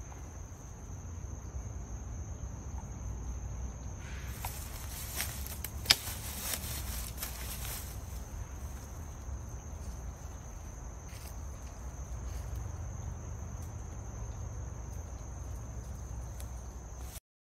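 Steady high-pitched chirring of insects, crickets or katydids, over a low rumble. From about four to eight seconds a rustle with a few clicks comes in, the sharpest near six seconds, as the twine and netting are handled against the tree.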